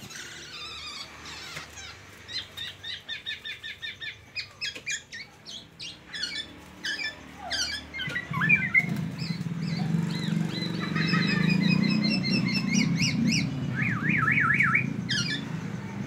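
Caged black-naped oriole (kepodang) singing a varied run of imitated white-rumped shama (murai batu) phrases: rapid strings of repeated high notes, sweeping whistles and a fast warbling trill near the end. A low rumble comes in about halfway through and runs under the song.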